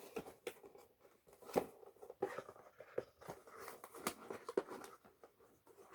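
Irregular light clicks and crinkling of small plastic parts and packaging being handled.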